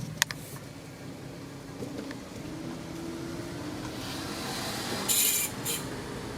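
2008 Honda CR-V on the move with steady running noise, and a short harsh scraping burst about five seconds in: rear brake grinding, pad against rotor.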